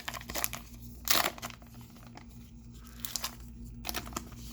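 Wrapper of a pack of baseball cards being torn open and crinkled in short rustles, loudest about a second in, with more crinkling later on.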